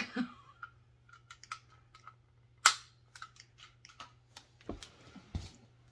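Handling noises: scattered clicks and taps as a plastic holster is fiddled with and set down, with one sharp click about two and a half seconds in and two low thumps near the end.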